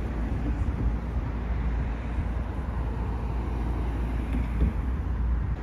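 Steady road traffic noise from vehicles on the bridge roadway, a continuous low rumble with no distinct events.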